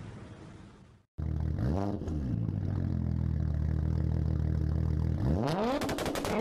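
Audi sedan's engine through its twin-tip exhaust, heard from close behind at road level: a quick rev blip, then a steady idle, then a hard rising rev near the end as the car accelerates away. Before it comes a second of fading road noise that cuts off abruptly.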